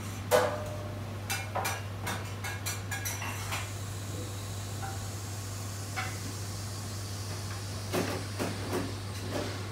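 Light clinks and knocks of utensils, a plate and a metal tray handled on a stainless-steel kitchen counter: a cluster in the first few seconds, the loudest about half a second in, and a few more near the end, over a steady low hum.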